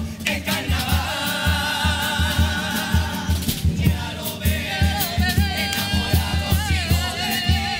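A Cádiz carnival comparsa choir of young male voices singing in held harmony over a steady drum beat.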